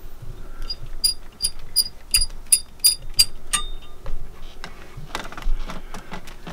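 A run of about eight light, evenly spaced metallic clicks, roughly three a second, as a wrench works loose the fuel return line bolt on a Northern Lights generator's diesel injection pump. A few scattered knocks and handling rattles follow.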